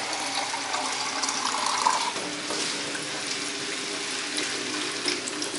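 Kitchen tap running into a small metal saucepan, the sound rising in pitch as it fills over the first two seconds or so; the water is then poured into a frying pan while the tap keeps running into the steel sink.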